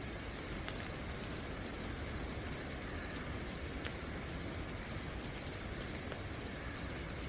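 Steady night rain falling, with a few faint drip ticks, and crickets chirping in a continuous high trill over it.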